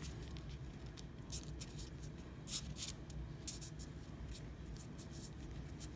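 A folded sheet of white paper rustling and scratching under the fingers as its flaps are pressed and pushed into shape: faint scattered crinkles, a few sharper ones near the middle.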